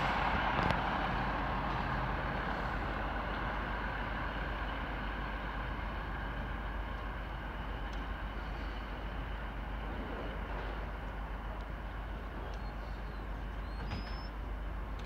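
Class 150 diesel multiple unit running past and moving away: a steady rumble of diesel engines and wheels on the rails, loudest at first and slowly fading as the train recedes.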